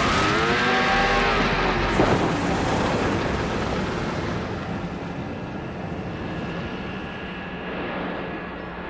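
Film chase-scene soundtrack of car and speedboat engines running hard. A pitched whine rises and falls over the first two seconds, with a knock about two seconds in, then a steady engine noise slowly fades.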